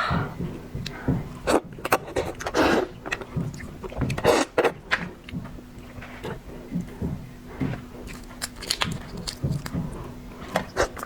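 Close-miked eating sounds: irregular clicks, scrapes and bites as seafood is handled and chewed, with a faint steady hum underneath.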